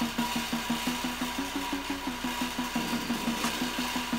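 Radio-controlled scale hydraulic excavators working: a rapid, steady mechanical pulsing of about seven beats a second with a thin, steady high whine over it.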